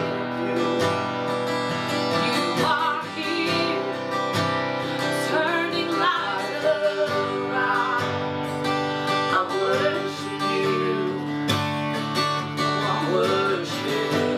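Worship song played on a strummed acoustic guitar, with a voice singing over it.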